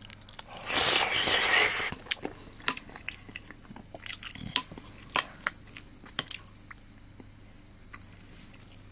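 A ceramic spoon scooping mapo tofu and rice from a porcelain bowl. There is a loud rush of noise for about a second near the start, then a scatter of light clinks and taps of spoon against bowl for several seconds.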